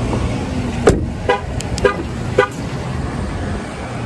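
A car's steady low running hum, with a sharp click about a second in followed by three short beeps about half a second apart.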